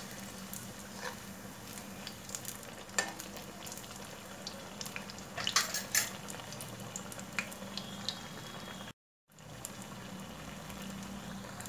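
Banana fritters (pazhampori) deep-frying in hot oil in a kadai: a steady sizzle with scattered crackling pops. The sound cuts out completely for a moment about nine seconds in.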